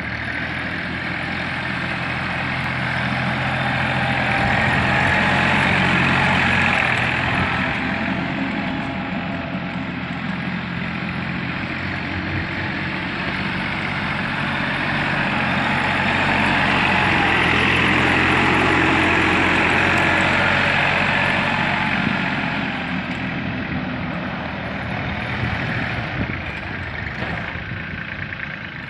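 Massey Ferguson 6028 mini tractor's three-cylinder 1318 cc diesel engine running as the tractor is driven in tight turns. The engine note swells louder twice, about a sixth of the way in and again a little past the middle, then settles.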